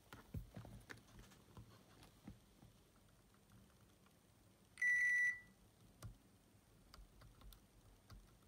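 Multimeter's continuity beeper sounding once, a steady high beep of about half a second near the middle, as the probes are held on the Walkman's tape detection switch. Faint ticks and taps of the probe tips on the board around it.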